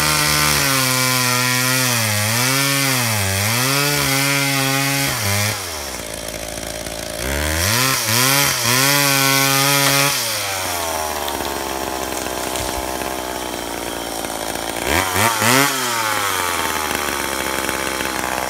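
McCulloch Pro Mac 55 two-stroke chainsaw cutting small spruce: the engine runs at full throttle, its pitch sagging again and again as the chain bites, then drops to idle about five seconds in. It revs and cuts again for a few seconds, settles back to idle, and gets a brief throttle blip near the end.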